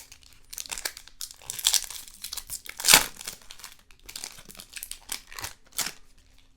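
Foil trading-card pack wrapper being torn open and crinkled, a run of irregular crackles with one sharp, loud rip about three seconds in.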